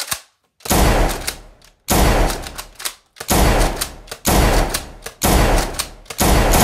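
A short click, then six loud gunshot bangs about one a second, each with a deep rumbling tail, as a toy blaster is fired in a mock shootout.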